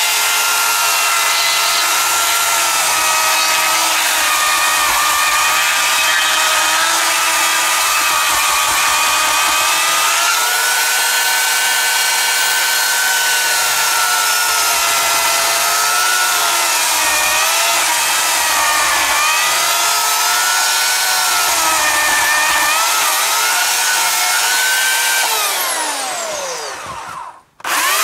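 Oregon CS1500 electric chainsaw cutting through a log. Its motor whine dips in pitch and recovers as the chain bites under load. The chain has its rakers ground off and cuts very aggressively. Near the end the trigger is released and the motor spins down with a falling whine, stops for a moment, and then starts again.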